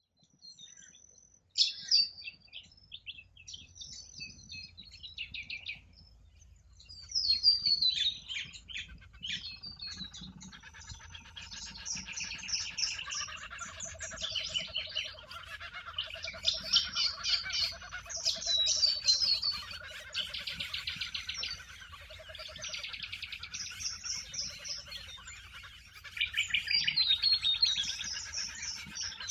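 Several Australian wild birds calling and singing: scattered high chirps and falling whistles at first, then a dense chorus of overlapping songs from about ten seconds in, with a lower pulsing warble underneath.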